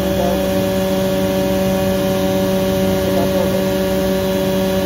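CompAir L90 rotary screw air compressor running on load at 7.5 bar: a loud, steady machine hum with several even tones that do not change.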